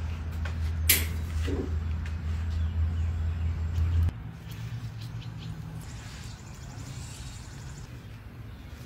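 A steady low hum that cuts off abruptly about four seconds in, with a sharp click about a second in; after the cut a fainter low background remains.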